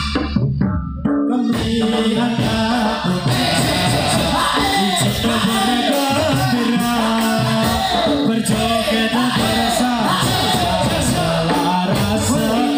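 Live music for an angguk dance: keyboard and percussion, with a singing voice coming in about four seconds in after a brief thin patch at the start.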